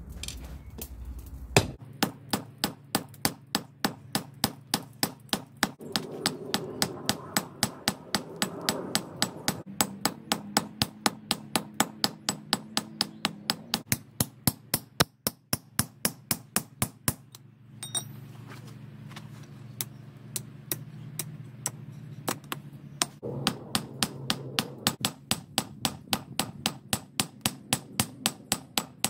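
Blacksmith's hand hammer striking hot steel on an anvil in a fast, even rhythm of about three sharp blows a second, partly driving a chisel or punch into the glowing bar. The blows pause briefly a little past halfway, then carry on at the same pace.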